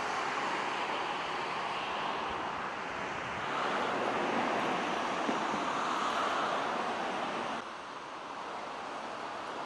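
Steady rushing noise of wind outdoors, rising a little about three and a half seconds in and dropping to a quieter level about eight seconds in.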